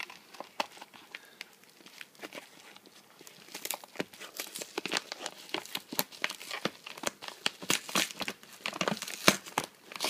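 Yellow padded mailer being crinkled and torn open by hand: a run of sharp paper crackles, sparse at first and much busier after about three seconds in.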